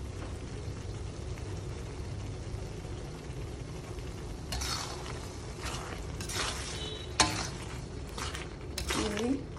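Slotted spatula stirring and scraping a thick chilli sambal with beef lung around a wok as it simmers and sizzles, cooking down until the gravy thickens. A steady low bubbling fills the first half, then scraping strokes begin about halfway, with a sharp clack of the spatula against the wok about two-thirds through.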